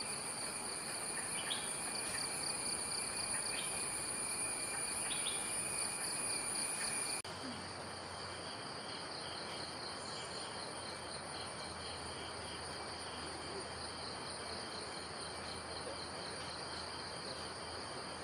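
Steady chorus of forest insects, several trilling at different high pitches, with a few short chirps in the first six seconds. About seven seconds in the chorus changes abruptly where the recording cuts.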